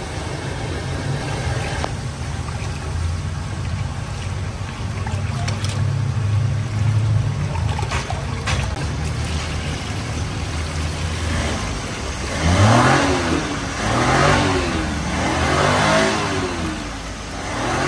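A motor vehicle engine running steadily, then revved three times in quick succession near the end, each rev rising in pitch and falling back.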